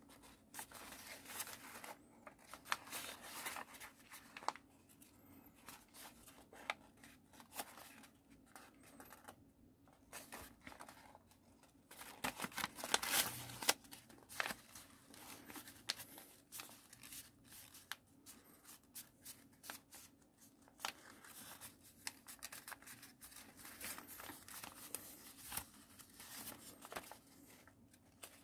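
Paper rustling and crinkling close up as fingers fold, press and crease a many-layered sheet of white origami paper, with a louder run of crackling about halfway through.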